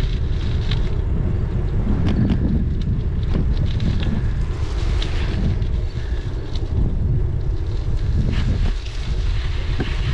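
Wind buffeting the microphone of a camera riding on a moving bicycle: a loud, steady low rumble, with scattered light clicks and rattles from the bicycle rolling along a sand-strewn paved path.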